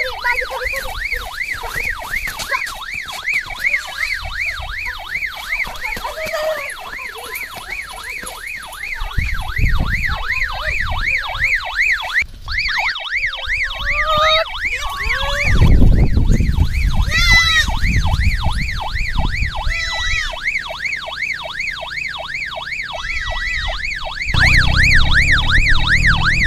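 Siren in a fast yelp, its pitch sweeping up and down a few times a second without a break. Bursts of low rumble come and go under it.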